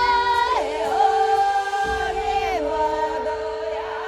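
Background music of wordless singing: long held sung notes that glide from one pitch to the next over a steady sustained drone.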